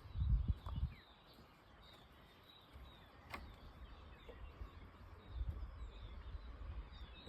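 Birds chirping faintly, with brief calls repeating throughout, over low rumbles at the start and again from about five seconds in, and a single sharp click a little past the middle.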